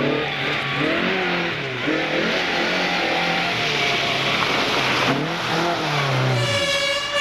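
Competition car engine revving hard, its pitch rising and falling again and again through gear changes and lifts, over loud road and tyre noise. Near the end a steady, unchanging high note sets in.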